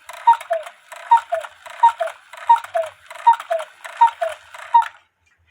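Cuckoo clock cuckooing, seven two-note calls, high then low, about one every three quarters of a second, then falling silent a little before the end. The clock's 8-point star wheel has a tab bent too far out, which lifts the low-note bellows too high and makes the clock get stuck mid-cuckoo.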